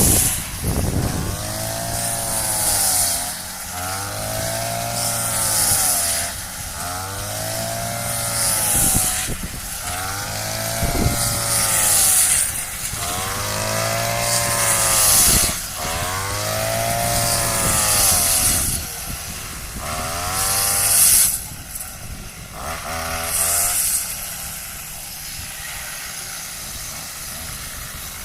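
Small farm engine revving up and falling back over and over, about every two and a half seconds, with a rushing hiss at each peak. Near the end it settles into a steadier, quieter run.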